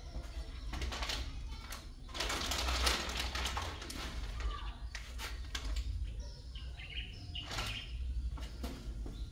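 Water splashing and being poured over a person bathing, heaviest about two seconds in, with scattered knocks.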